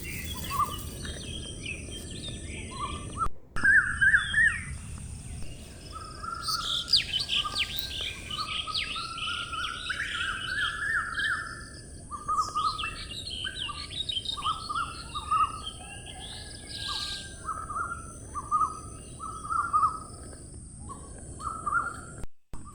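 Several birds chirping and calling in short repeated notes and quick trills over a low steady background hiss. It cuts out briefly twice, about three seconds in and near the end.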